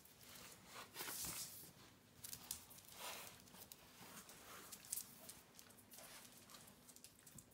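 Faint rustling and scuffling as a cat lying in a small cardboard box licks and paws at a small dog's head and fur. The loudest rustle comes about a second in, another about three seconds in, with a short sharp tick near five seconds.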